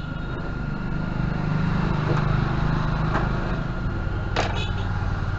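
A low motor drone that swells and then settles lower, under a faint steady high whine, with a couple of sharp clicks and a short burst of high chirping beeps about four and a half seconds in.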